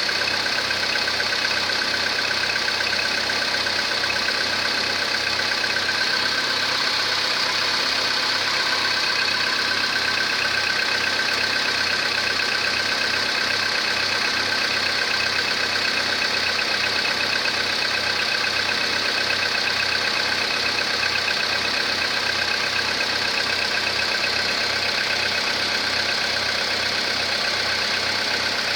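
Volkswagen Polo Sedan petrol engine idling steadily, with a light rhythmic knock that the owner suspects is piston knock, even though the engine already has the updated pistons.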